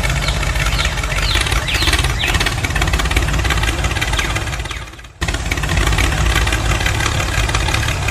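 Tractor engine running steadily, fading down about five seconds in and then cutting straight back in. A few short high chirps sound in the first two seconds.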